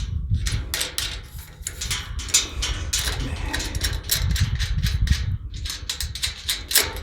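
Irregular metallic clicks and taps of nuts, bolts and a wrench working on a slide bolt gate latch bracket as it is fastened to a metal gate, over a low wind rumble on the microphone.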